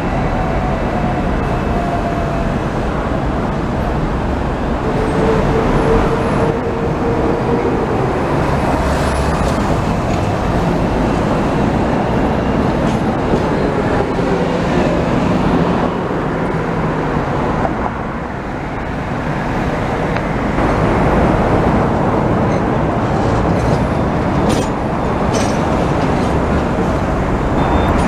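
Busy street traffic, with double-decker buses driving past close by; the noise holds steady, dipping briefly about two thirds of the way through.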